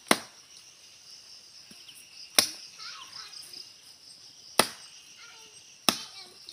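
A machete chopping into the base of a small tree trunk: four single sharp chops, unevenly spaced a second or two apart, over a steady drone of insects.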